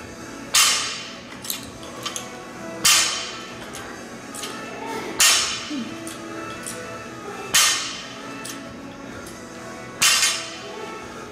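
Loaded barbell with bumper plates striking the rubber gym floor during repeated lifting reps: five sharp impacts about every two and a half seconds, each dying away quickly, over faint background music.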